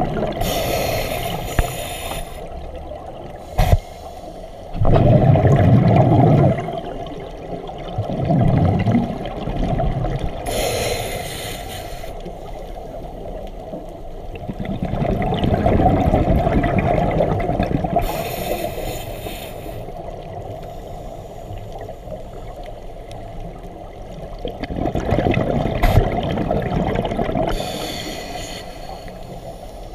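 Scuba diver's breathing through a regulator, heard underwater: four breaths, each a short hissing inhale through the demand valve followed by a longer bubbling rush of exhaled air. A couple of small sharp knocks come between breaths.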